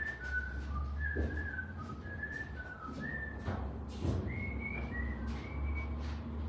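A person whistling a tune in a run of short notes that step up and down in pitch, with scattered knocks throughout.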